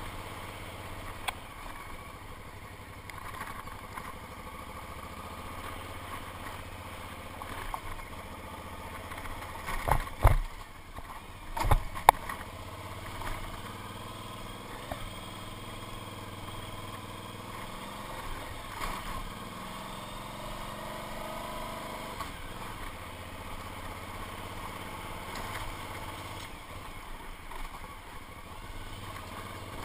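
Motorcycle engine running at low road speed on a rough gravel and dirt track, the revs rising and falling with the throttle. Two loud low thumps come about ten and twelve seconds in.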